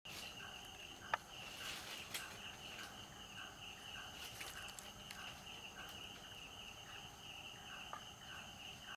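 Faint night insects, crickets trilling steadily, with a second, lower chirp repeating about twice a second. Two small clicks, one about a second in and one near the end.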